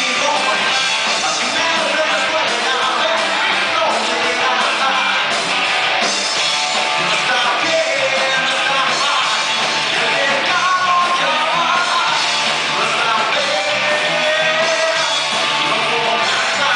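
Rock band playing live with a singer over guitars and drums, loud and steady, with hardly any deep bass.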